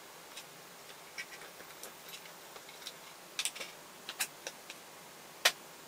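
Scattered light clicks and taps of hands handling a plastic screwdriver housing and small tubes on a tabletop, with one sharper click near the end.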